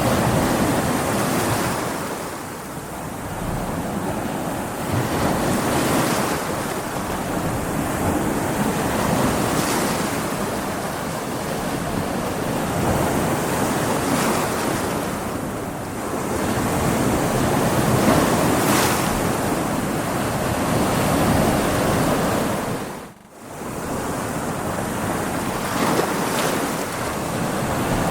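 Stormy sea: rough surf and wind, waves swelling and breaking every few seconds. Near the end the sound drops away for a moment, then comes straight back.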